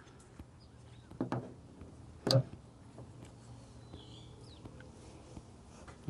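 Hand wire crimper being worked on insulated butt connectors for a power wire. There are a couple of soft clicks a little after a second in, then one sharp click a little over two seconds in.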